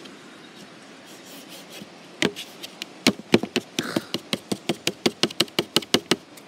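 Plastic knife tapping and scraping against a disposable plate as it chops at a wasp larva: a couple of clicks about two seconds in, then a fast run of sharp taps, about five a second, stopping shortly before the end.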